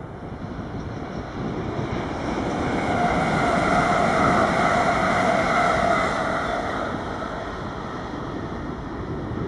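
A train passing by, growing louder to its peak midway and then fading, with a steady whine over the rumble.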